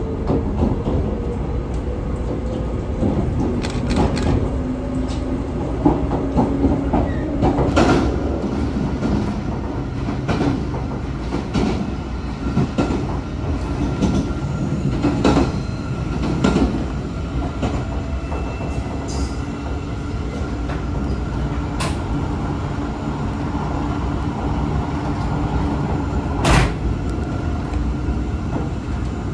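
381-series limited express electric train heard from inside the car, pulling away and running. Its motor whine rises in pitch over the first few seconds and then holds steady over the running rumble of the wheels. Scattered sharp clacks from the wheels crossing rail joints break through, the loudest near the end.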